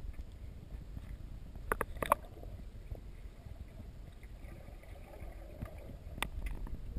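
Muffled sea-water rumble and sloshing picked up by a GoPro in its waterproof housing held just under the surface, with a few sharp knocks about two seconds in and another near the end.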